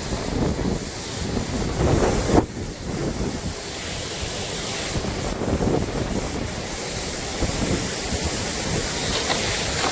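Strong gusting wind rushing through trees and buffeting the microphone, with a loud gust about two seconds in.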